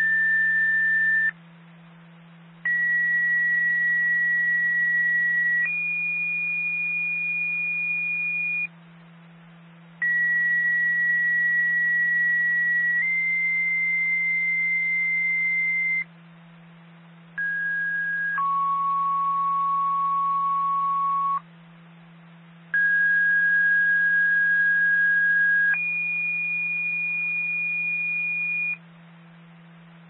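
Two-tone sequential radio signalling tones heard through a scanner: four pairs of steady high beeps, each tone mostly about three seconds long, with the pitch stepping between the two tones of a pair and short pauses between pairs, over a low steady hum. These are the activation tones that set off the county's outdoor warning sirens for the test.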